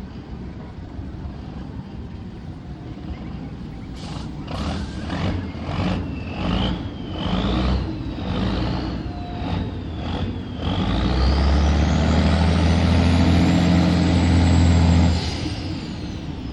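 Tugboat's diesel engine being throttled in uneven bursts. It is then run up hard for about four seconds with a high whine that climbs and holds, and is throttled back near the end as the whine glides down.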